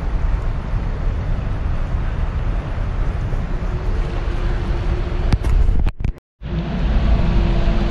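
A steady low rumble with a faint hum, a couple of light clicks and a brief dropout to silence a little past the middle.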